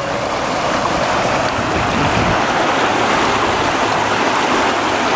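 Water rushing steadily over a small creek waterfall, running low for the season.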